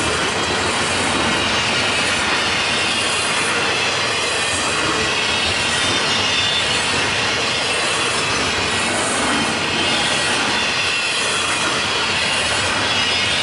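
Union Pacific double-stack intermodal container train passing close by: the steady, loud rolling rumble and rattle of wheels on rail. A high hiss swells at a regular beat, about once a second or so.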